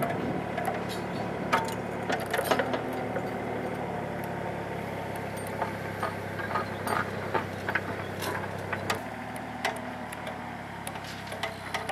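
Heavy equipment engines running steadily while drill stem, pipe-bursting impactor and new HDPE pipe are pulled through the trench, with scattered clicks and knocks. The engine tone drops about nine seconds in.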